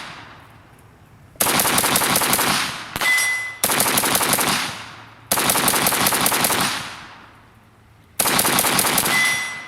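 Rapid semi-automatic fire from a 5.45×39 AK-74 rifle shooting 7N6 ammunition: three fast strings of shots, each dying away in echo before the next. A short high ringing tone sounds twice near the end of two strings.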